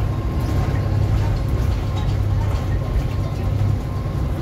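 Double-decker bus running under way, heard from inside on the upper deck: a steady low drone with a thin steady whine over it. The low drone eases a little near the end.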